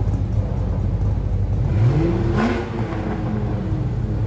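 Two V8 engines idling together, a Mustang Cobra's 4.6 L DOHC V8 breathing through a catted X-pipe and Violator mufflers and a Chevrolet square-body pickup. About two seconds in, one engine is blipped, its pitch rising and then settling back.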